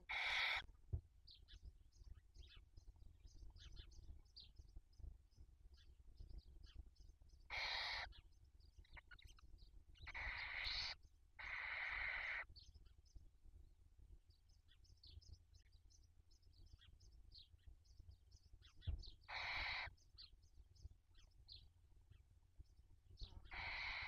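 Barn owl nestlings begging for food: about six harsh hissing calls, each half a second to a second long, with faint, quick high-pitched chittering in between.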